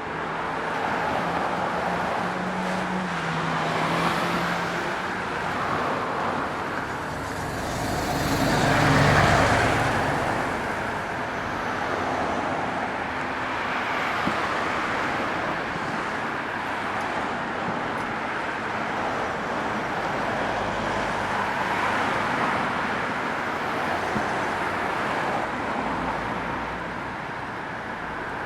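City street traffic: a steady wash of cars and road noise, with one vehicle passing close and loudest about a third of the way through.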